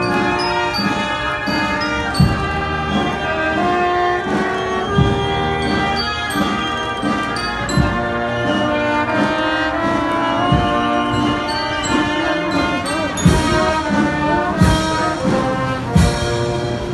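Procession brass band playing a slow funeral march: sustained brass chords, a bass drum stroke about every three seconds, and cymbal crashes near the end.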